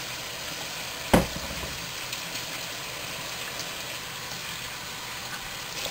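Sirloin beef sizzling steadily in a frying pan on the stove, with one sharp knock about a second in.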